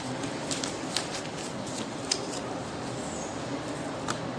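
Steady classroom room noise with a handful of short, sharp clicks and taps, the loudest about two seconds in.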